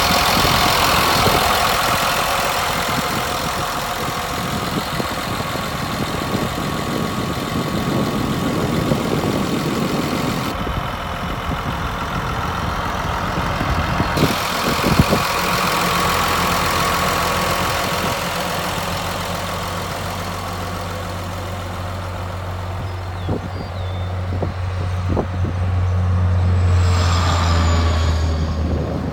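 Caterpillar D5N crawler dozer's diesel engine running steadily, with a few sharp knocks. A deeper hum builds in the second half, is strongest near the end, then drops away.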